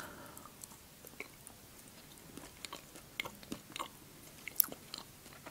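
Soft close-up chewing of a small piece of milk chocolate, with faint scattered mouth clicks and a sharper click about four and a half seconds in.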